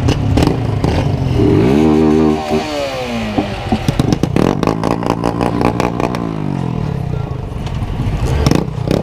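Motorcycle engine revved: it climbs about a second and a half in, holds briefly, then drops back to idle, and a second, shorter rev falls away later. A rapid run of sharp clattering pops comes in the middle, with another near the end.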